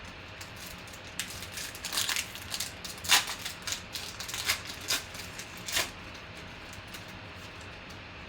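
Trading cards and packs being handled: an irregular run of sharp crinkles and clicks that stops about six seconds in.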